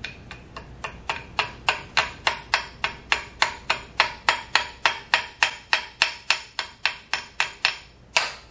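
Small hammer tapping metal on a Monarch 10EE lathe spindle: a rapid, even run of light metallic taps, about three or four a second, with a short ring after each. One last separate tap comes near the end.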